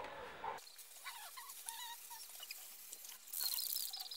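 Faint scattered chirps, then near the end a short hiss of an aerosol spray-paint can spraying, with a fast chirping trill over it.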